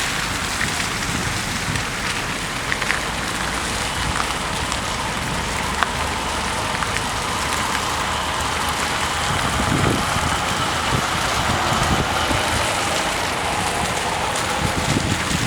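Steady road traffic noise: a constant hiss like tyres on a wet road, with a low swell of a passing vehicle about ten seconds in.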